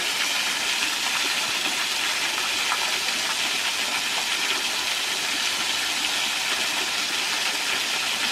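Steady rushing and splashing of a small creek waterfall, an even hiss of falling water with no change in level.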